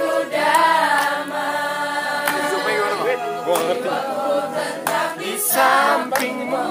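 A choir of mixed voices singing together in chorus, holding chords and moving between them.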